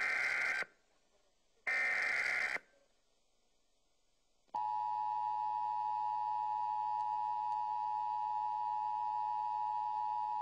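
Emergency Alert System signal: two data bursts of the EAS (SAME) header, each about a second long, a second apart. Then, about four and a half seconds in, the steady two-tone EAS attention signal starts and holds.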